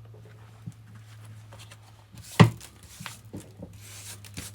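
Metal tools and vise parts being handled: one sharp knock about halfway through, then a few lighter taps and a brief scrape, over a steady low hum.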